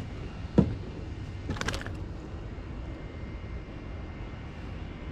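A bass landing on wooden dock decking with one sharp thump about half a second in, then a short clatter of clicks a second later as it flops, over a steady low background rumble.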